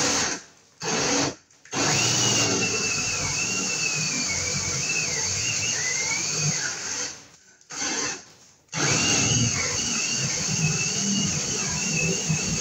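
Cordless drill boring a hole into a wall, running in several bursts with short pauses, two of them lasting several seconds. A high motor whine wavers in pitch as the bit loads up.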